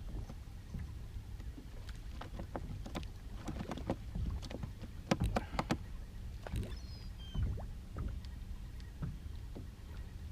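Knocks and clatter in a small fishing boat, a dozen or so sharp taps scattered irregularly, over a steady low rumble.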